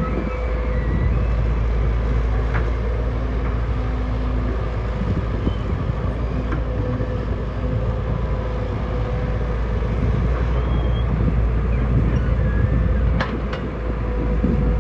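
Heavy earthmoving machinery with diesel engines running steadily under load: a low, continuous drone with a constant hum over it. A few short sharp knocks break through, one about two seconds in and a pair near the end.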